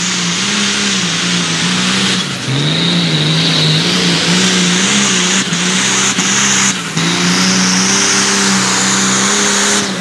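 A six-cylinder tractor-pulling engine running hard at high revs, its note wavering up and down. It dips briefly about two seconds in and again near seven seconds.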